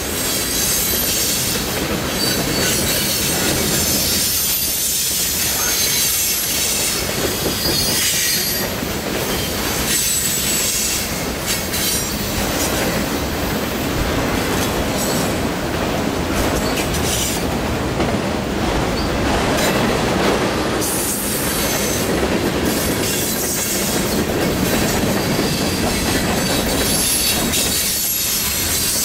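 Freight cars of a passing freight train rolling by at speed: a steady rumble and clatter of steel wheels on rail, with thin high squealing tones from the wheels.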